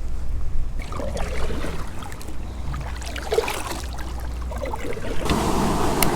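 Water sounds around a kayak with wind rumbling on the microphone; about five seconds in, a louder steady rushing noise of water and wind comes in.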